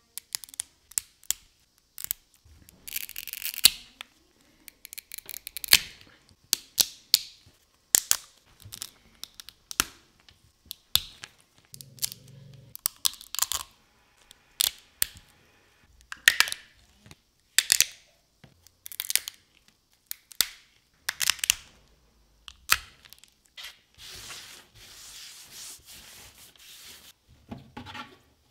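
Flush cutters clipping and snapping resin support structures off 3D-printed resin parts: an irregular run of sharp snaps and cracks, several a second, with crunching and tearing between them.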